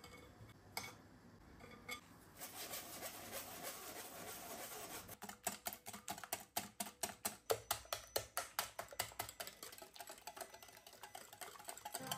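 Wire balloon whisk beating cocoa crêpe batter in a glass bowl, its wires clicking against the glass in a fast steady rhythm of about four strokes a second, stronger from about five seconds in. A couple of taps of a wooden spoon on a metal sieve come first.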